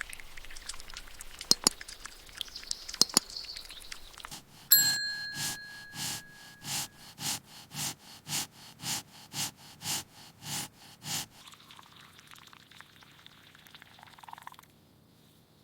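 Kitchen ASMR sound effects. Scattered light clicks come first, then a bright ding about five seconds in. About a dozen even strokes follow, roughly two a second, and then a soft steady hiss for a few seconds before it cuts off.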